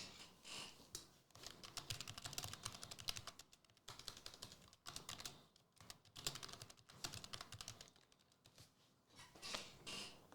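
Faint runs of rapid light clicks, typing on a computer keyboard, with short pauses between bursts.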